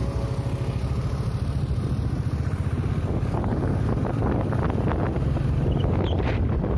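Wind buffeting the microphone of a moving two-wheeler, over the steady low rumble of its engine and tyres on the road.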